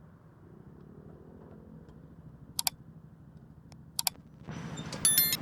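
Two sharp double clicks of eating utensils handling a food container over a low steady hum. About four and a half seconds in, a passing vehicle's noise swells, with a brief high ringing tone near the end.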